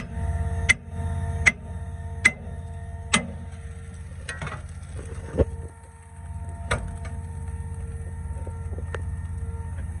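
Hammer blows on the steel fittings of a concrete pump's hopper clean-out door as it is knocked open: about one sharp metallic strike a second for the first three seconds, then a few more, spaced out. Under them the pump's engine runs steadily.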